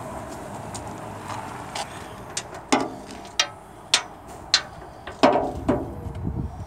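Hand grease gun being pumped on a snowblower's grease fitting: a series of about six sharp mechanical clicks, roughly one every half second, starting a few seconds in, over a steady background hum.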